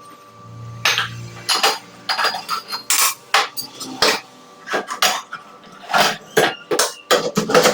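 Dishes and cutlery clinking and clattering as they are handled, a quick irregular run of knocks that starts about a second in.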